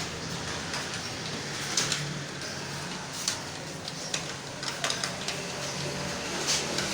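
Computer keyboard being typed on: an uneven, fairly quick run of key clicks from a timed typing test going at about 34 words a minute, over a steady low hum.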